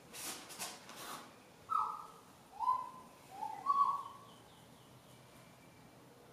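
Rustling of a body and clothing shifting on a foam roller and rubber mat for about a second. Then a bird calls four short whistled notes, the first falling in pitch.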